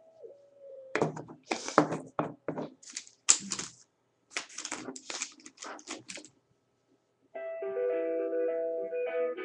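A run of irregular scratchy knocks and rustles for about five seconds, then a short pause, then music with sustained keyboard-like notes starting about seven seconds in.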